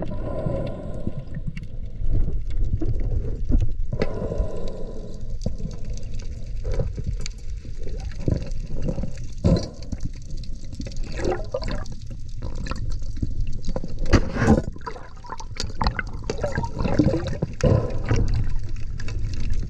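Water sloshing and gurgling, heard muffled from a camera underwater, with a low rumble and scattered clicks and knocks throughout.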